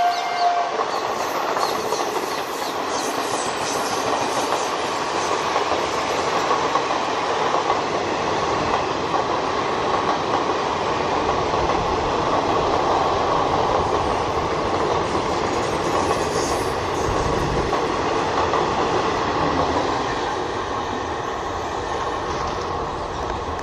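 Express train's passenger coaches passing at speed: a steady rumble and rattle of wheels on the rails, easing a little near the end as the last coaches go by. A locomotive horn's note cuts off just under a second in.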